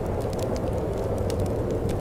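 Wood fire crackling in a fireplace, with scattered sharp pops and snaps, over a steady low rush of wind.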